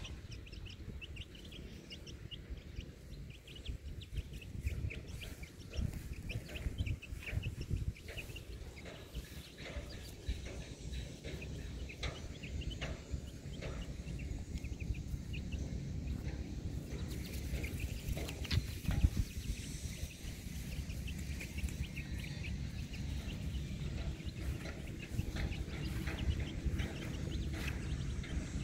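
Short bird-like clucking or chirping calls, many in the first half, over a steady low rumble and scattered handling thumps.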